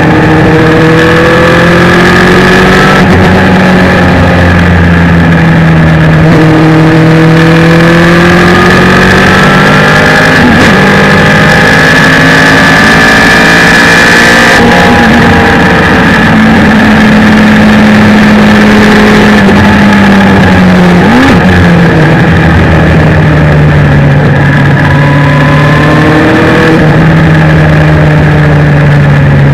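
Suzuki Hayabusa inline-four motorcycle engine in a race car, running hard at high revs: its pitch climbs through each gear and drops at every upshift. About halfway through a long climb cuts off as the throttle is lifted, and later a quick rev blip comes with a downshift.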